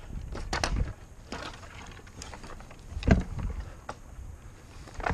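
Scattered knocks and twig cracks from a dead branch being pulled with a long pole hooked over it, the loudest about three seconds in, over a steady low rumble.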